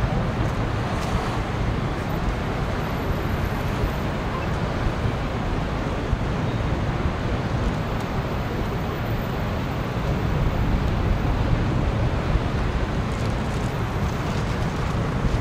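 Steady outdoor noise: wind rumbling on the microphone over a distant hum of traffic.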